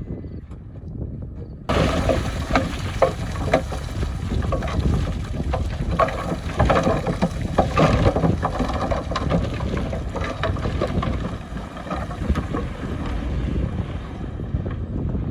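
Heavy earthmoving machine's engine rumbling under load, with a sudden jump in loudness about two seconds in and many sharp cracks and clattering knocks over it that thin out toward the end.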